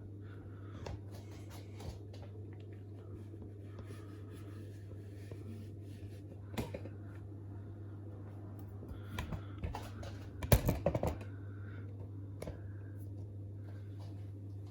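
Scattered light clicks and knocks over a steady low hum, with a louder cluster of knocks about ten and a half seconds in.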